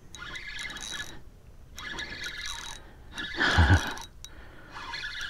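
Spinning reel being cranked in short spurts while a hooked ladyfish is reeled in, with a louder low thump about three and a half seconds in.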